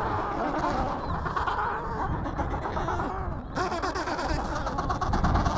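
Adélie penguin colony calling, many overlapping calls at once, over a low wind rumble on the microphone. About three and a half seconds in, a rapid run of pulsing calls joins in.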